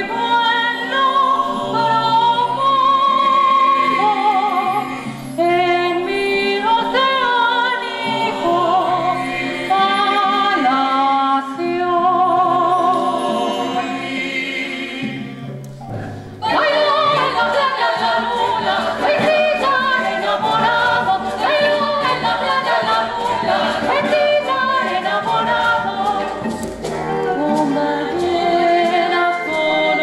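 A woman sings a slow melody with vibrato over sustained accompaniment. About halfway through, the music breaks briefly and a fuller ensemble with choir comes in.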